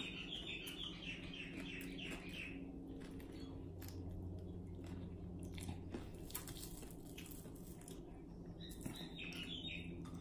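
Close-up chewing and crunching of crispy fried dried fish (bulad) with rice, in scattered crackles. A high twittering chirp sounds near the start and again near the end, over a steady low hum.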